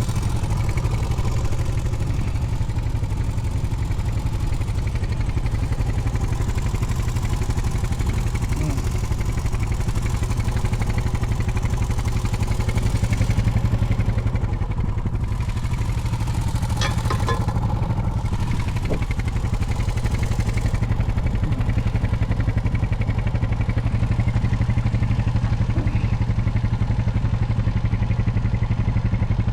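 ATV engine running at a steady speed, without revving, with a few light clicks partway through.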